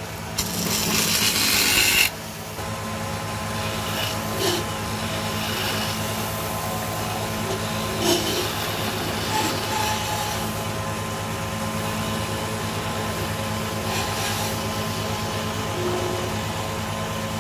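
Wood lathe running with a steady low hum while a hand chisel cuts the spinning wooden blank. The cutting is loud for the first two seconds, then lighter scraping with brief sharper cuts about 4, 8 and 14 seconds in.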